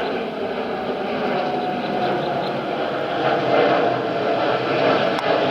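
Jet airliner engines at takeoff power: a steady, dense rumble that grows louder about three seconds in as the plane passes.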